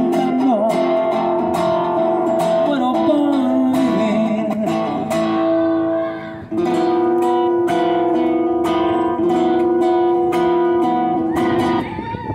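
A man singing long held notes with vibrato over a strummed acoustic guitar; the music breaks off near the end.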